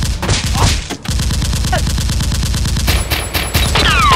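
Rapid, continuous automatic gunfire sound effect, many shots a second, broken by a couple of brief gaps. Near the end several falling whistle-like tones join in.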